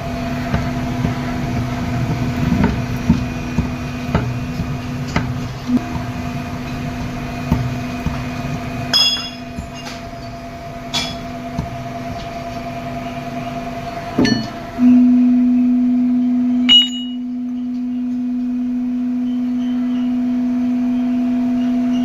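Broaching machine running with a steady hum over a rumble and scattered knocks, with a few sharp ringing metallic clinks. About fourteen seconds in the rumble stops, leaving a louder steady hum.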